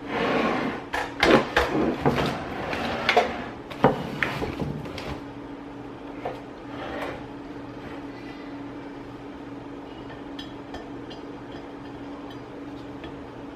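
Kitchen clatter of cookware and utensils: a short rush of noise, then a quick run of sharp knocks and clanks over the first five seconds, thinning to a few faint taps and ticks, over a steady low hum.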